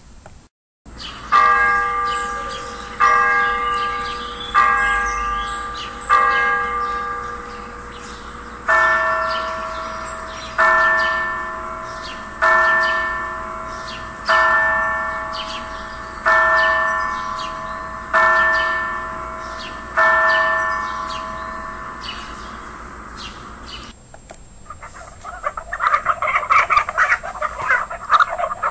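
Church bells tolling, one stroke about every two seconds with each stroke ringing out and fading: four strokes of one bell, then seven strokes of a second bell with a different pitch. Faint bird chirps sound throughout. Near the end, hens cluck.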